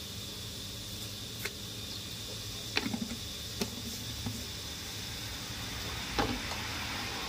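Chopped garlic frying in oil in a wok, a steady sizzling hiss. A few light clicks stand out, the sharpest near the middle and again near the end.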